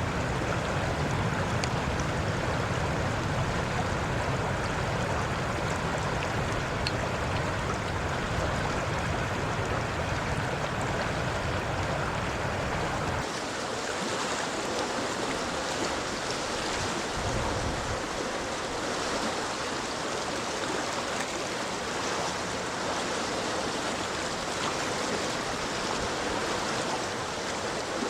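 Floodwater of an overflowing river rushing and churning in a steady, dense wash. A low rumble underneath stops abruptly about halfway through.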